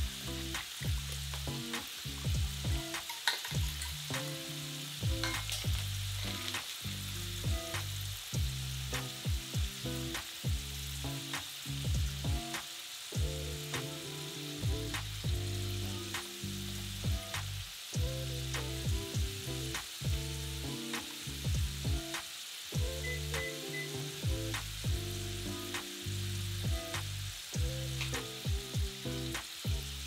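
Oil sizzling steadily as food fries, with a wire whisk clicking and scraping against a stainless steel mixing bowl as batter is stirred. Soft background music with low sustained notes runs underneath.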